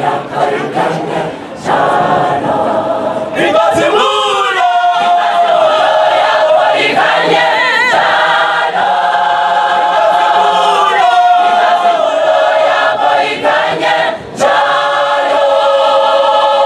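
Large mixed youth church choir singing in harmony, unaccompanied. After a few seconds of short, choppy phrases it settles into long held chords.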